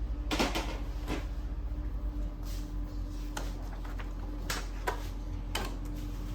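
Epson L6290 inkjet printer running a head-cleaning cycle: a steady low hum with a low throbbing that stops about two and a half seconds in, and several short sharp clicks and knocks scattered throughout.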